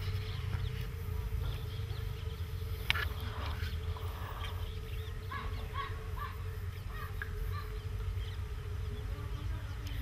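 A steady, even buzzing hum over a low rumble, with small birds chirping now and then and a single sharp click about three seconds in.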